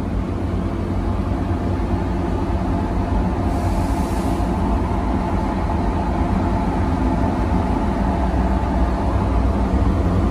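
Diesel engine of a John Deere logging machine running steadily at idle, heard from inside its cab, with a brief hiss about four seconds in.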